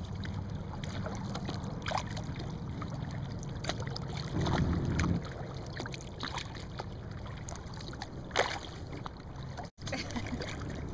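Boat out on the open water: a steady low rumble with scattered small splashes and drips of water. There is a louder swell of noise about four seconds in, and the sound cuts out for an instant near the end.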